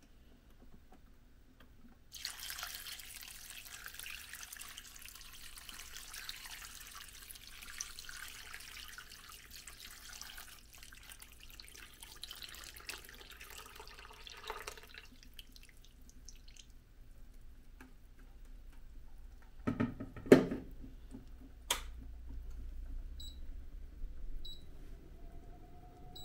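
Water poured from a plastic jug into a pot of diced vegetables, splashing steadily for about thirteen seconds, then stopping. Several seconds later comes a loud sharp knock, then a click, and a few short high electronic beeps near the end from the induction hob's controls.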